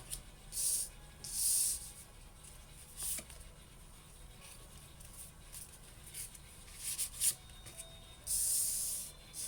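Tarot cards being shuffled and drawn from the deck: several short papery swishes and rubs, the longest near the end.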